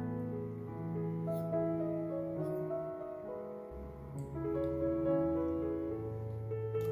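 Background instrumental music with piano, steady held notes changing every half second or so.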